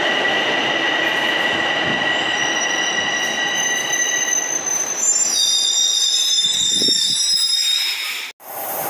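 Toronto Rocket subway train braking to a stop at the platform: its running rumble and a steady whine fade as it slows, and high-pitched squeals rise from about five seconds in as it comes to a halt. The sound cuts off abruptly near the end.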